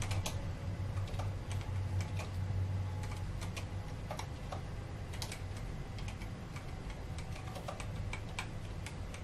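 Irregular clicks of a computer keyboard and mouse being operated, scattered through the whole span, over a steady low hum.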